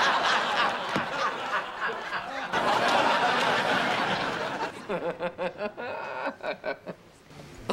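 A woman laughing over a sitcom studio audience's laughter, then a snicker in quick, even pulses, about four or five a second, that tapers off near the end.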